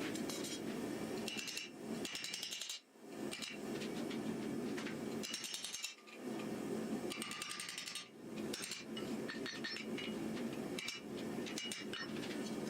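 Hammer strikes on metal during forging, coming in quick runs with a ringing clink, over a steady low rushing noise. The sound cuts out briefly twice.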